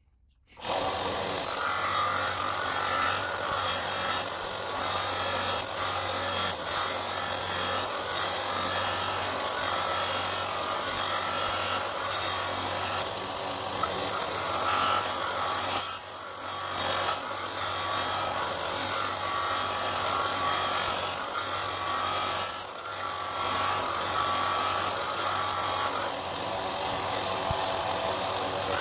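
Bench disc sander coming up to speed about half a second in, then running with its abrasive disc grinding down the outside of a ring blank of dense dark wood sandwiched around brass plate. The grinding rises and eases as the blank is pressed on and eased off.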